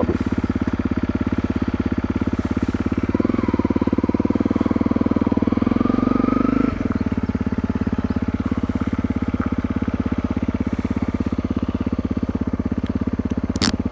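Honda CRF250L single-cylinder engine idling through an FMF Q4 HEX slip-on exhaust with its quiet-core insert, a steady, even exhaust note that is not that loud. About three seconds in it runs a little louder for a few seconds, then settles back to idle.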